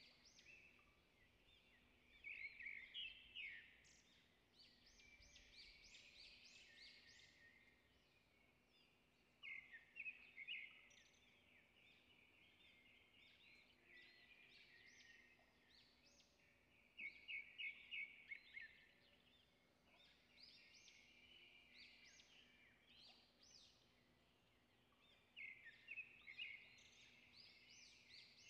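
Faint chirping of small birds in quick repeated bursts every few seconds, over a faint low steady hum.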